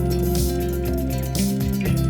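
Background music: a steady beat with guitar and held low notes.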